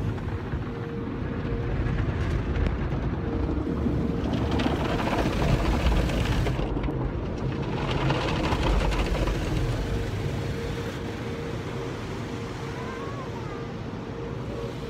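Automatic tunnel car wash heard from inside the car: water spray and foam brushes washing over the body, with a heavy low rumble and a steady hum. It swells twice in the first half and eases off toward the end.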